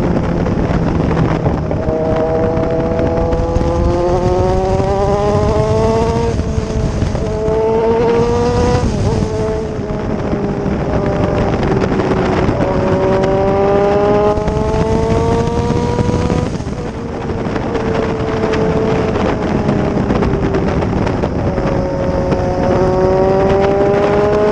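Kawasaki Z1000 inline-four motorcycle engine pulling hard under acceleration, its note climbing steadily and dropping sharply at each upshift, four times over, over a steady rush of noise.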